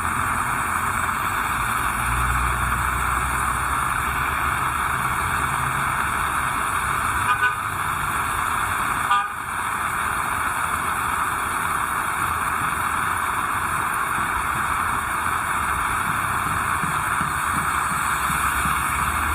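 Heavy rain falling with a steady hiss. Twice, a little over a second apart about halfway through, a vehicle horn gives a short toot.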